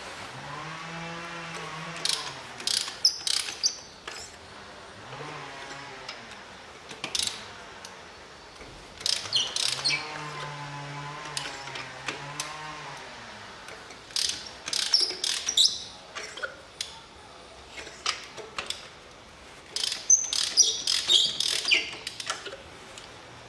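Ratchet wrench clicking and metal tools clinking in clusters while the spark plugs are unscrewed from the engine's plug wells. A low wavering hum comes and goes three times.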